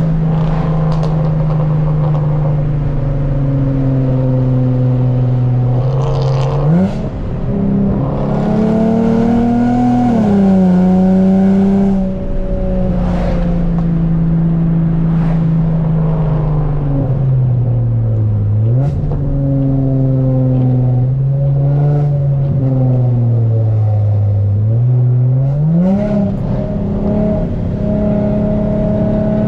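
Infiniti G35 coupe's 3.5-litre VQ V6 through a loud aftermarket exhaust, heard from inside the cabin while it is driven hard through bends. The revs sag slowly off the throttle and then climb sharply back up three times.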